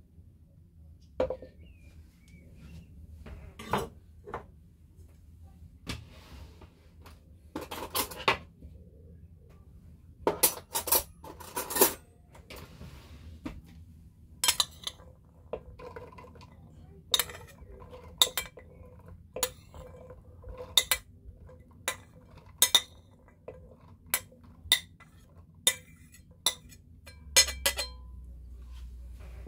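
Metal spoon clinking against a plate while pomegranate seeds are spooned into a plastic blender cup: sharp clinks, scattered at first, then about one a second.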